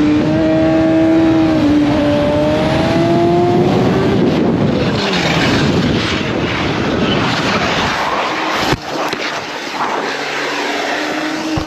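Motorcycle engine running hard at high revs over heavy wind and road noise; its pitch climbs slowly, then drops away about four seconds in. A brief break comes near the ninth second.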